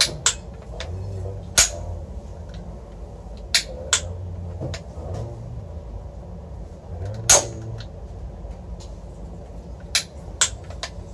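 The lever action of a handmade wooden toy Winchester rifle being worked, giving sharp wooden clicks: about seven snaps at uneven intervals, some in pairs about half a second apart.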